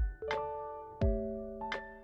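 Background music: slow keyboard chords, each struck with a low beat beneath and left to ring.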